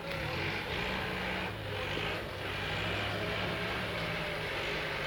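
Off-road jeep engine running at a fairly steady pitch.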